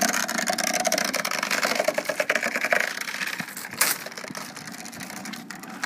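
Metal chain of a hand-hauled chain ferry rattling quickly through its guides as it is pulled, with one louder clank a little under four seconds in. The rattle fades toward the end.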